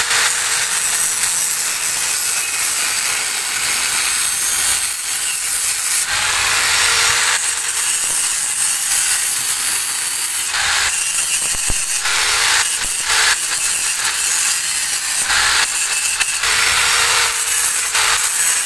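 Small electric angle grinder grinding against the steel blade of a handsaw. It runs steadily with a harsh, hissing grind, dipping briefly a few times past the middle as the disc eases off the metal.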